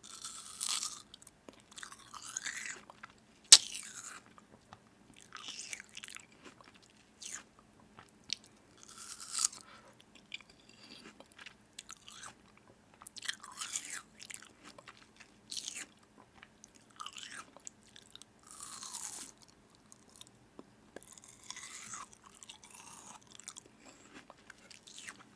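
A person biting and chewing crunchy food in irregular bursts of crunching, with one sharp crack about three and a half seconds in.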